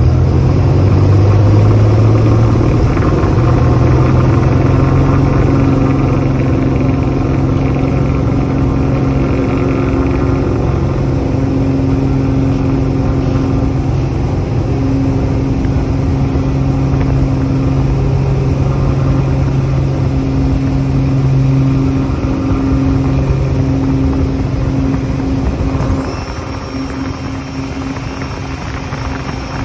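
Cessna 210's six-cylinder piston engine and propeller at full takeoff power, heard from inside the cockpit: a loud, steady drone whose pitch rises as power comes up in the first couple of seconds, then holds through the takeoff roll and climb. It gets somewhat quieter near the end.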